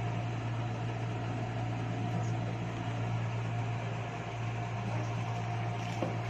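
A steady low hum with a faint steady whine over a hiss, like a fan or small motor running, with a light click near the end.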